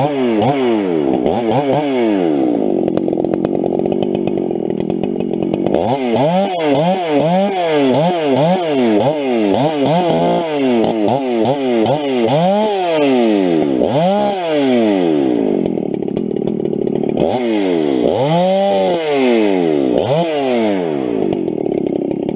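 Husqvarna 394 two-stroke chainsaw running loud while bucking logs, its engine pitch repeatedly dropping and climbing back up over and over, with a few steadier stretches between.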